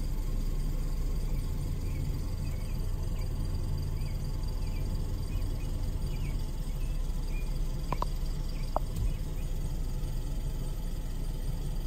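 Ducklings peeping: a string of faint, short high peeps, then two louder chirps about eight seconds in, over a steady low rumble of road noise.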